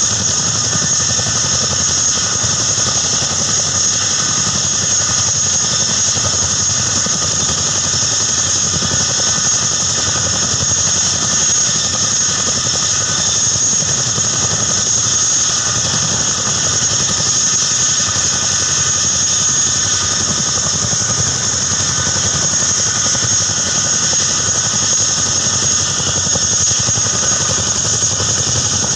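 A CH-47 Chinook tandem-rotor helicopter running on the ground with both rotors turning, its twin turboshaft engines at idle. The sound is a loud, steady high turbine whine over a low rotor thrum.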